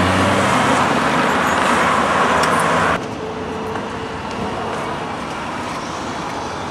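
Busy city street traffic: a steady mix of car and vehicle noise. It is louder at first and drops suddenly to a quieter, even hum about three seconds in.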